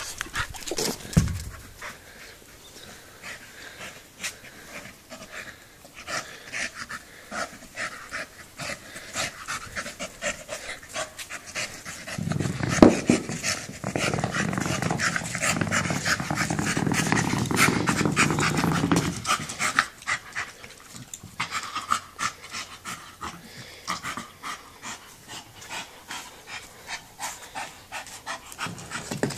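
A Staffordshire bull terrier panting hard as it plays with a bowling ball. The heavy ball rumbles as it rolls over brick paving for several seconds in the middle, with one sharp knock about 13 seconds in.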